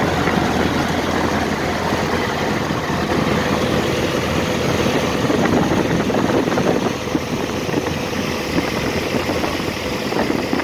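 Ercoupe's piston engine and propeller idling steadily while the plane taxis, heard from inside the cockpit; the sound eases a little about seven seconds in.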